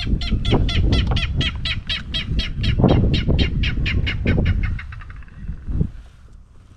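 A bird calling in a long rapid series of short, sharp notes, about five or six a second, that fade out after about five seconds.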